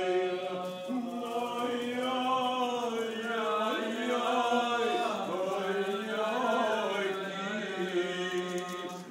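Cantor chanting a Jewish liturgical melody, one man's voice holding long notes that bend and waver through ornamented runs, with a brief drop near the end.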